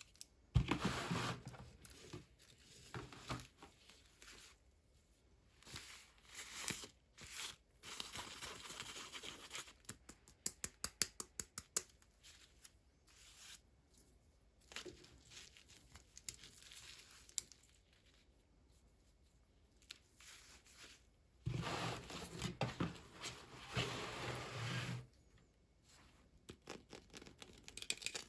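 Toy packaging being opened by hand: irregular bursts of tearing, crinkling and cutting, with a quick run of small clicks about ten seconds in and a longer spell of tearing a little past the twenty-second mark.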